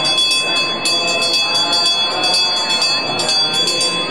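Brass temple hand bell rung rapidly and without pause, each strike adding to a steady shimmer of ringing tones, over a group of voices chanting.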